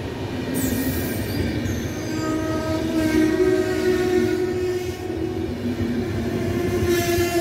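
PKP Intercity passenger coaches rolling along the platform, with steady wheel-and-rail rumble. From about two seconds in, a steady pitched whine with overtones joins and holds.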